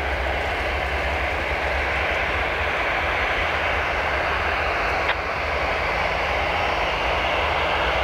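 Airbus A319's twin CFM56 turbofan engines running steadily as the airliner rolls slowly along the runway, with a single short click about five seconds in.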